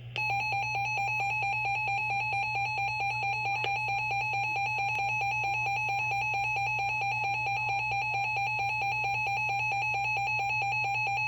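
Emergency Alert System attention signal: a loud, steady electronic two-tone alarm that starts just after the beginning and holds unchanged. It announces an emergency alert, here a severe thunderstorm warning.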